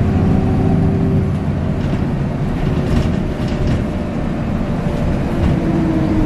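Cabin sound of a moving bus: a steady low engine and road rumble, with a whining tone that slowly falls in pitch near the end.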